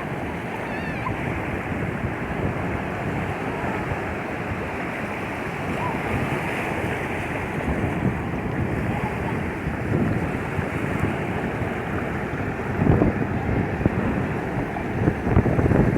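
Sea waves washing onto a beach, with wind rumbling on the microphone that swells louder about thirteen seconds in and again near the end.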